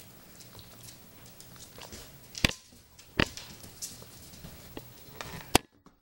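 Standard poodle puppy moving about on a hard tile floor close by: scattered light clicks and ticks of claws and mouthing, broken by three sharp, loud clicks in the second half.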